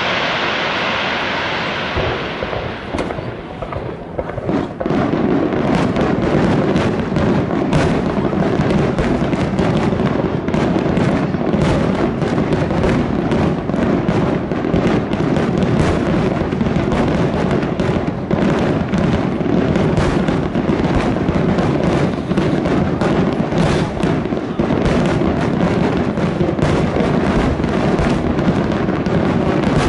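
Aerial firework shells bursting in a finale barrage. A hiss fades within the first two seconds, then from about five seconds in there is a dense, unbroken run of overlapping bangs.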